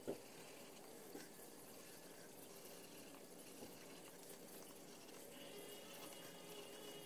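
Faint scratching of a craft knife cutting a paper stencil on a cutting mat, with a short tap right at the start and a softer one about a second in.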